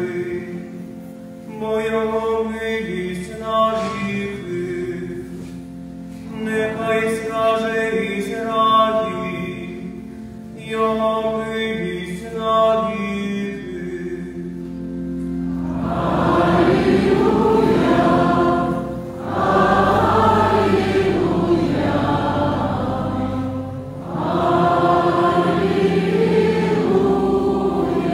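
A man's solo liturgical chant, sung into a microphone in several short phrases. About halfway through, a choir takes over in fuller singing in three long phrases.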